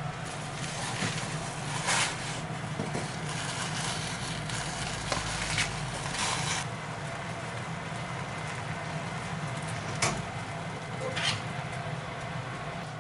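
Kitchen cooking sounds: a steady low hum with occasional clicks and knocks, the loudest about two seconds in and again about ten seconds in.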